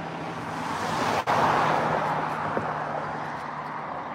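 A vehicle passing by, its road noise swelling about a second in and then slowly fading, over a faint steady low hum.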